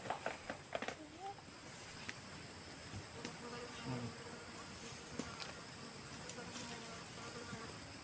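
Steady high-pitched insect chorus in the forest, a continuous shrill hum that holds unchanged throughout, with a few light clicks near the start.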